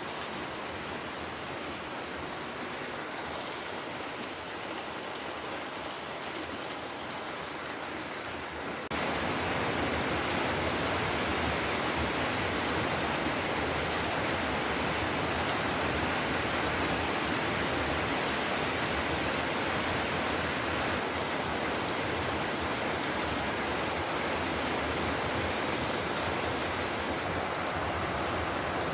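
Heavy rain falling steadily in an even hiss, getting abruptly louder about nine seconds in.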